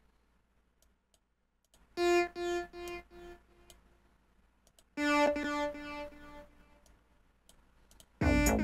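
Synthesizer notes previewed from FL Studio Mobile. One note sounds about two seconds in, repeating and fading like an echo, and a lower note sounds about five seconds in. Near the end a louder three-note chord starts playing back.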